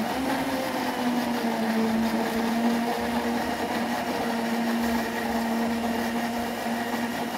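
A countertop blender motor running at speed 6, blending rice milk with powdered panela. It holds a steady whine over a whirring hiss, the pitch settling slightly lower about a second in after spinning up.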